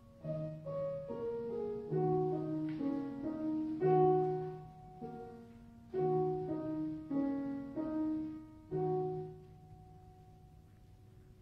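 Solo piano playing a slow, quiet melody with chords. The notes ring and decay, and the final chord fades away near the end.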